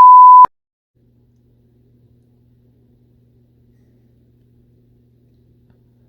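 Censor bleep: a loud, steady single-pitch beep laid over a swear word, cutting off sharply about half a second in. After it, only a faint low hum.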